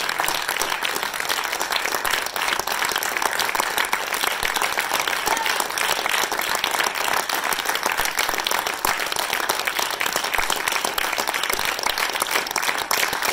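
Theatre audience applauding, dense steady clapping from many hands.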